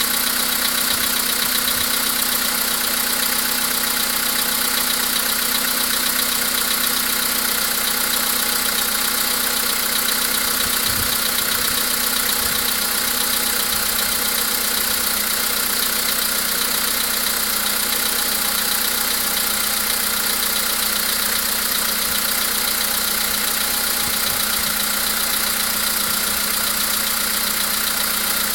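VW Polo sedan's CFNA 1.6-litre four-cylinder petrol engine idling steadily after a cold start, with the knock this engine makes while cold.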